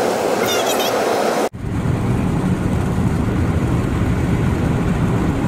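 Road and wind noise inside a moving car. About a second and a half in, a sudden cut changes it from a steady hiss to a heavier, low rumble.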